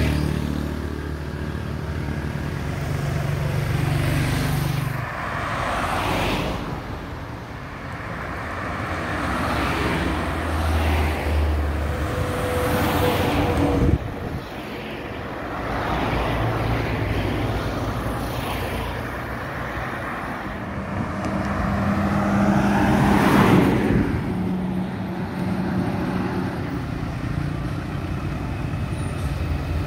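Road traffic passing by: cars, motorbikes and heavy lorries, each engine and its tyre noise rising and fading in turn. The sound changes abruptly about halfway through.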